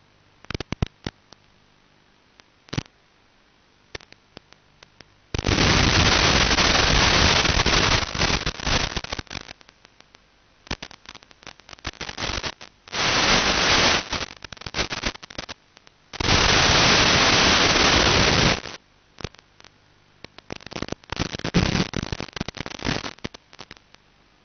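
Analog FPV video receiver's audio channel crackling and popping, with several seconds-long bursts of loud hiss that switch on and off abruptly, the sign of the 5.8 GHz video link breaking up in radio interference.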